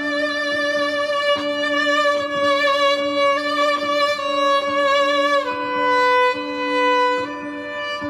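Viola played with a loop pedal: a slow bowed melody of long held notes over a steady low drone note.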